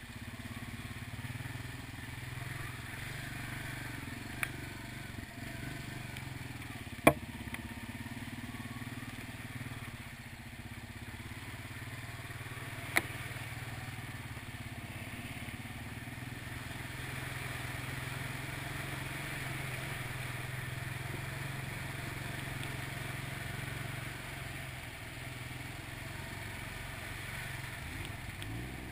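ATV engine running steadily while riding a rough, muddy trail, a little louder for a stretch in the second half. Three sharp knocks cut through it, the loudest about seven seconds in.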